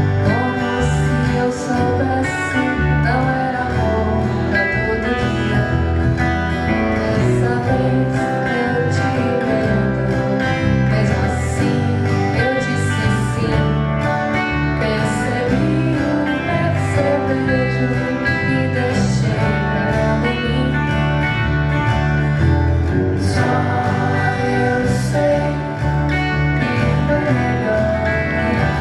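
Live band music: acoustic guitar over a steady bass line and drums with regular cymbal hits, with a singing voice carrying the melody.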